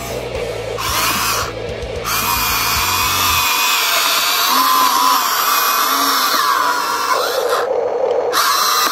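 Electric gear motors of a Huina 1593 RC excavator whining as the boom and arm lift and the tracks drive, the pitch shifting as the motors change speed.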